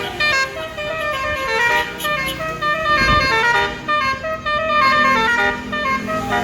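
Bus telolet 'basuri' musical horn playing a fast tune of short, stepped notes, several tones sounding together.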